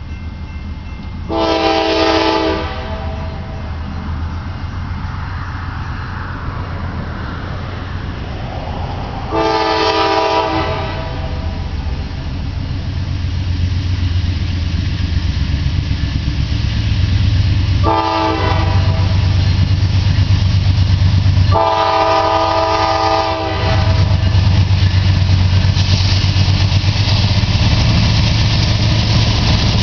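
Norfolk Southern freight train's lead diesel locomotive sounding its air horn in the grade-crossing pattern: long, long, short, long. Under the horn, the low rumble of the diesel locomotives grows louder as they draw near.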